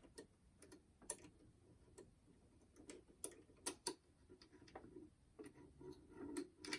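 Faint, irregular small clicks and scrapes of a bent wire hook being worked inside a boombox's cassette compartment, feeling for the eject switch.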